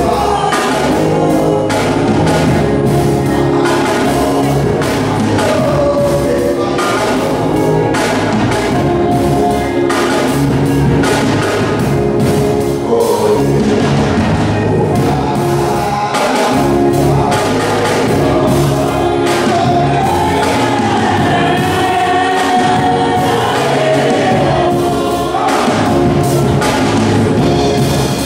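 Live gospel music: a man singing lead through a microphone, with backing vocals and a band keeping a steady beat.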